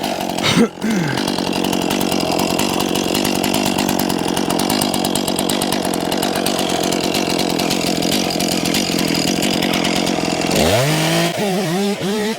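Two-stroke chainsaw held at high revs, cutting into a dead spruce tree, with a steady high engine whine. Near the end the throttle is let off and the engine drops back to a lower, uneven running speed.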